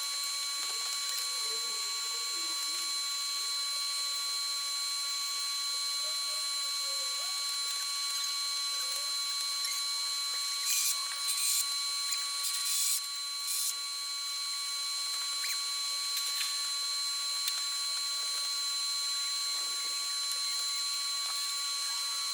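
Mechanic's tool work on a truck: a steady high-pitched whine throughout, with a few short bursts of tool noise a little past halfway.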